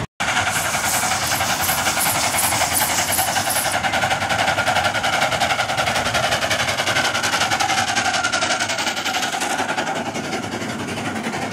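Ride-on miniature railway train with its loaded passenger cars rolling past on the narrow-gauge track, the wheels clattering rapidly and steadily on the rails.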